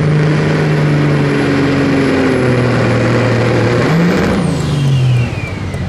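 Street semi tractor's diesel engine running hard with a high turbo whistle over it. The engine pitch dips about halfway, blips up about four seconds in, then falls off a second later as the turbo whistle winds down.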